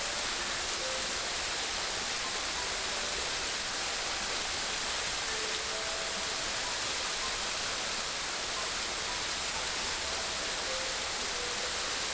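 Steady, continuous rush of flowing water, with faint scattered musical notes underneath.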